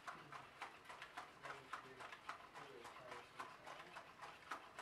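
Aldebaran NAO V4 humanoid robot walking, making a faint, even ticking of about four taps a second.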